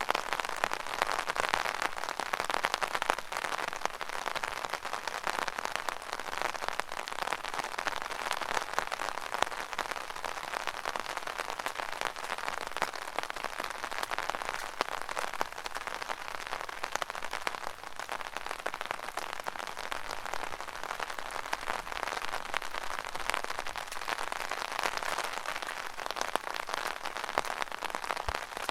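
Rain pattering steadily on an open umbrella: a dense, even spatter of drops on the canopy.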